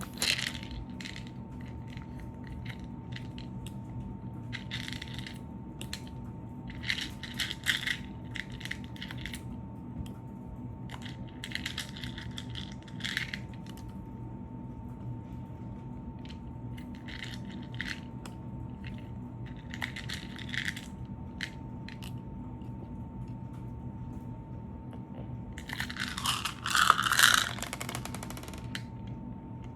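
Intermittent crunchy rustling and scraping as slime-kit materials are handled and mixed, in short bursts every few seconds, with the loudest stretch near the end. A faint steady electrical hum with a thin high tone runs underneath.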